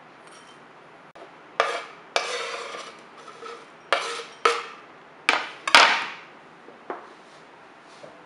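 Chef's knife scraping chopped crackers off a cutting board into a small ceramic bowl, with about seven sharp knocks and clinks of knife and board against the bowl, each dying away quickly; the loudest comes about two-thirds of the way through.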